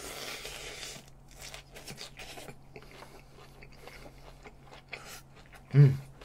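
Close-miked eating: a crunchy bite into a hand-held wrap, then chewing with small wet clicks and crackles. A short hum near the end is the loudest moment.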